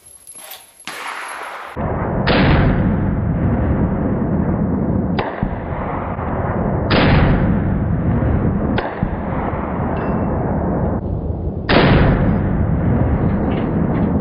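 Pistol shots slowed down with a slow-motion replay: about five drawn-out, deep booms, each starting sharply and fading into a long low rumble.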